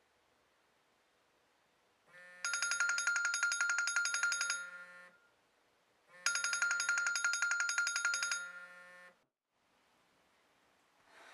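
iPhone alarm ringing: a rapidly pulsing electronic tone in two bursts of about three seconds each, with a short pause between them.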